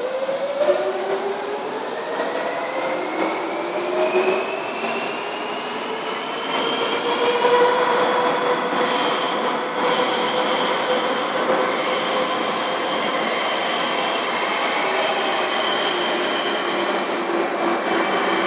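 Madrid Metro 3400-series electric trains: the traction motors whine in several rising tones as one train accelerates out of the station. About halfway through, an arriving train comes in with a loud high wheel squeal and hiss that holds on as it runs along the platform.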